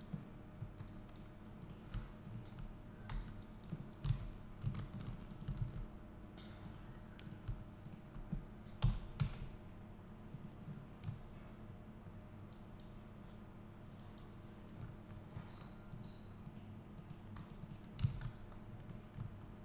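Scattered, irregular clicks of a computer keyboard and mouse, over a faint steady low hum.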